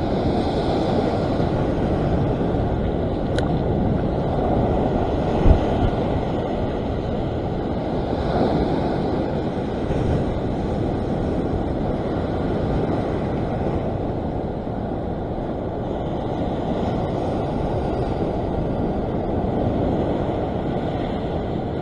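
Heavy ocean surf breaking and washing over a rock ledge: a steady rush of water, with one brief low thump about five and a half seconds in.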